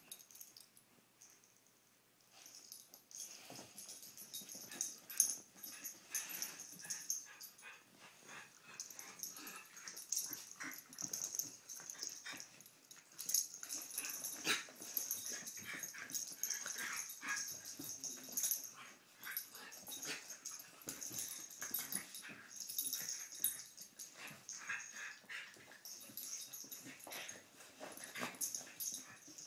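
Two Jack Russell terriers play-fighting: a busy, irregular run of dog vocal noises and scuffling that starts about two seconds in and keeps going.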